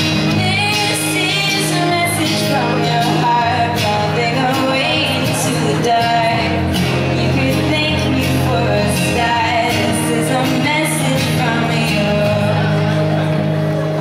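A woman singing live into a microphone while strumming an acoustic guitar: a song with a melodic vocal line over sustained guitar chords.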